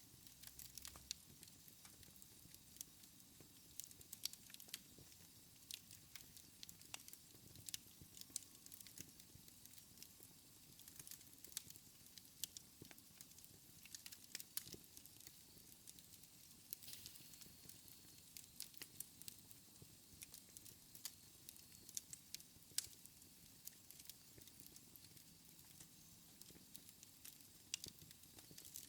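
Wood fire in a fireplace crackling faintly, with frequent irregular small pops and snaps over a soft hiss.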